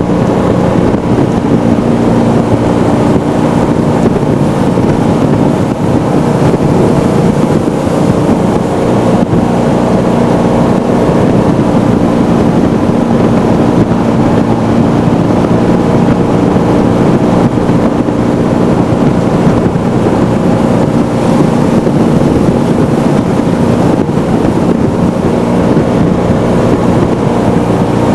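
Jet boat engine running steadily at speed, heard from aboard, with wind buffeting the microphone and water rushing past the hull.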